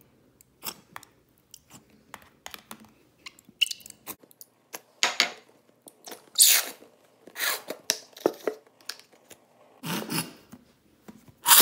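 Clear shampoo being squeezed out of a plastic squeeze bottle into a ceramic bowl. A series of short wet squirts and sputters comes as the bottle is squeezed to empty it, with small clicks and taps of handling in between.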